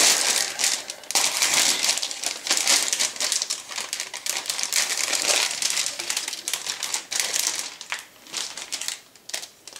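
Clear plastic bag crinkling as plastic model-kit sprues are pulled out and handled: a dense crackle that thins to a few scattered clicks near the end.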